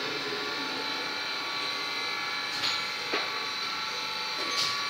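Steady drone of workshop machinery running, with three light knocks in the second half as the aluminium diesel cylinder head is handled and turned over on the bench.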